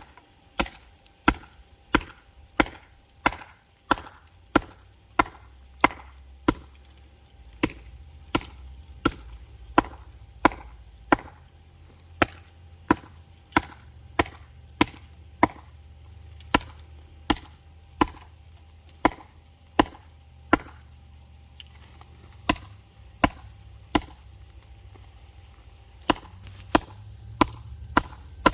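Work Tuff Hemlock Ares blade chopping into the trunk of a dead tree: a steady run of sharp wooden strikes about every two-thirds of a second. The strokes break off briefly twice about three-quarters of the way through, then come quicker near the end.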